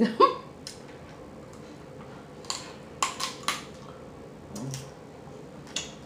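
Snow crab leg shell being cracked and snapped open by hand: a few sharp cracks about two and a half to three and a half seconds in and another near the end, after a short mouth sound at the very start.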